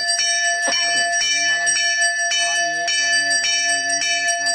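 Temple bell rung steadily for the Ganesha puja, struck about twice a second so its ringing never dies away. A low voice chants beneath the ringing.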